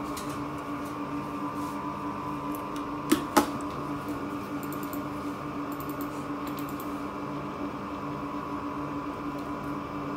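Two sharp clicks about three seconds in, then a few faint light ticks, over a steady electrical hum. The clicks are typical of a computer mouse operating an NVR's on-screen controls.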